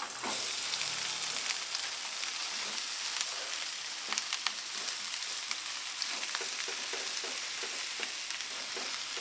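Beef lung in chili sambal being reheated in hot oil in a frying pan: a steady sizzle that starts suddenly as the pieces are tipped in. Light clicks and scrapes of a wooden spatula stirring the food are scattered through it.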